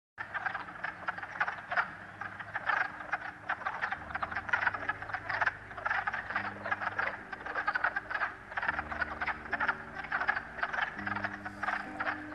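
Spring chorus of many frogs calling at once: a dense, unbroken mass of rapid croaking pulses that begins a moment in.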